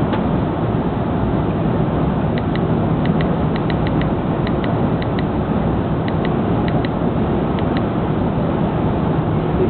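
Airbus A330 cabin noise, a steady rumble with a low hum. From about two and a half seconds in to nearly eight seconds, small clicks come mostly in pairs, several times.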